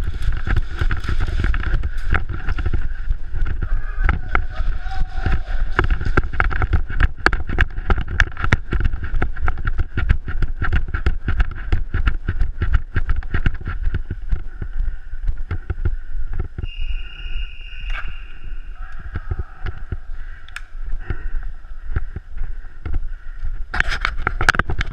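Running footsteps on a concrete floor with gear and a gun rattling, over a steady low rumble of wind and handling noise on a head-mounted action camera. A short high beep sounds partway through.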